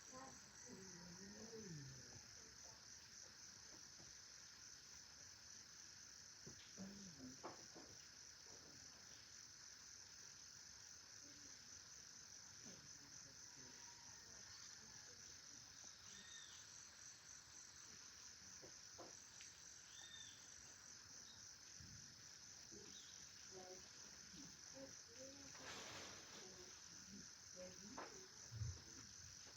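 Faint, steady high-pitched trilling of a chorus of insects, with a few soft knocks and short calls scattered through.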